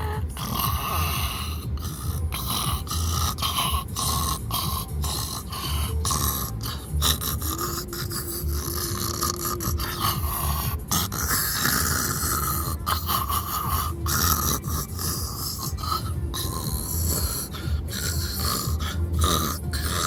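Snoring, one breath after another, with a brief steady whistle-like tone in the middle.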